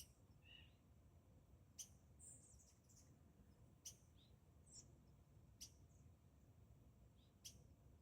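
Faint wild birdsong: scattered short high chirps and calls, with a sharp note repeated about every two seconds.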